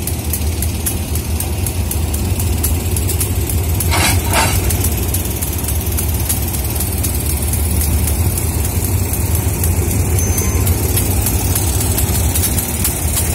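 GEA-class diesel-electric locomotive engine idling with a steady low rumble. Two sharp knocks come about four seconds in.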